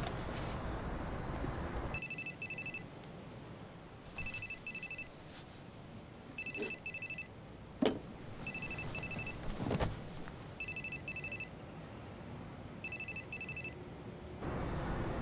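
A telephone ringing in a repeating double-ring pattern: six rings about two seconds apart, starting about two seconds in. A click and a low thump fall between rings midway.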